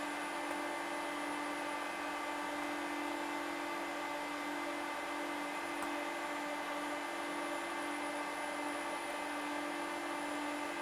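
Steady whirring hum of a running Quantel HAL Express video compositing system: its cooling fans and powered card rack, with a constant low tone under a fan hiss.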